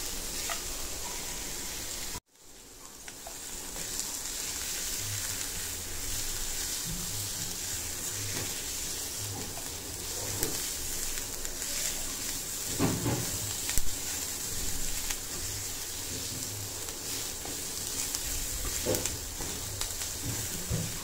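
Chopped onions sautéing in hot oil in a nonstick pan: a steady sizzle, with a silicone spatula stirring and scraping through them and a couple of brief louder knocks. The sound cuts out about two seconds in and fades back up.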